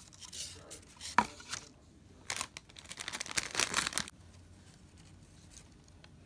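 Close handling noise as craft pieces are moved about on paper flyers: a sharp click about a second in, then crinkly paper rustling from about two to four seconds in.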